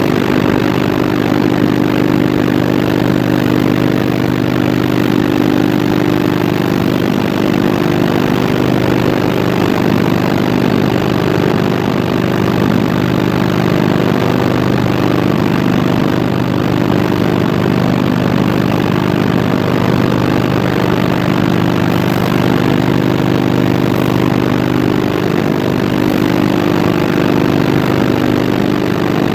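Machinery of a scrap metal shredding and recycling line running: a loud, steady mechanical drone with a few held hum pitches.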